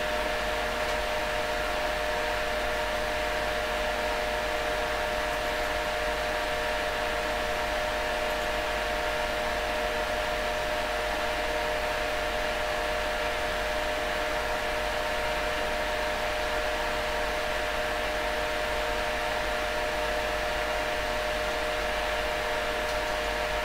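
Cooling fans of a powered-up bench electronics setup running steadily: an even whirring hum with a few steady tones in it.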